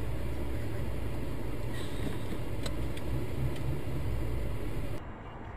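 Steady low rumble of car and street traffic heard by a dash camera inside a slowly moving car, with a few faint clicks. About five seconds in it cuts to a quieter recording.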